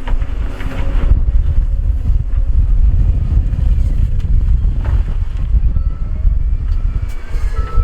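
Heavy diesel earth-moving machinery running with a deep, steady rumble, and wind buffeting the microphone. Short beeps near the end suggest a reversing alarm.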